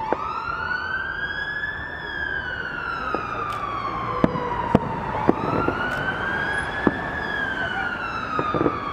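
An emergency-vehicle siren in a slow wail, rising and falling in pitch about once every five seconds, with sharp firework bangs and cracks over it, the loudest a cluster of bangs from about four to seven seconds in.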